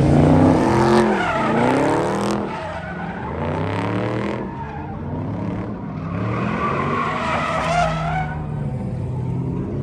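Car doing donuts, its engine revving up and down hard with tyres squealing and skidding, in two bursts with a short lull about halfway through; in the later part the car is a purple Dodge Charger.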